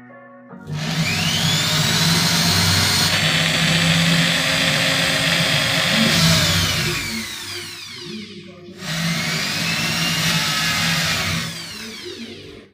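Electric hand drill spinning up with a rising whine and running while drilling holes through thin panels into a wooden board. It winds down with a falling whine about six seconds in, then starts up again near nine seconds and runs for a few seconds more before stopping.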